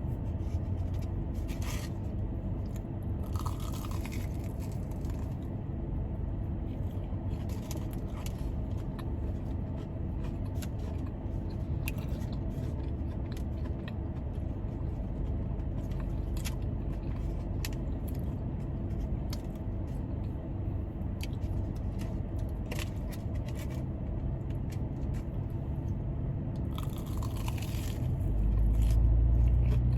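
Close-up crunching, biting and chewing of food over the steady low hum of a car's air conditioning; a deeper, louder hum swells near the end.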